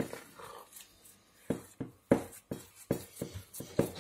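Hands squeezing and kneading a thick, sticky oat-flake dough in a glass bowl: a run of short wet squelching clicks, about three a second, starting about a second and a half in.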